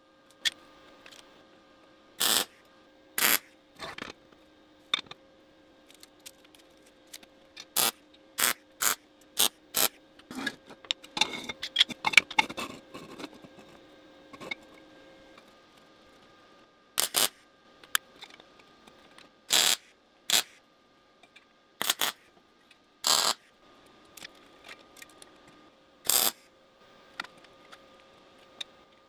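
Metal workshop handling sounds: sharp clinks and knocks at irregular intervals as steel pieces and hand tools are picked up and set down. A few seconds of scraping and rubbing come about halfway through, over a faint steady hum.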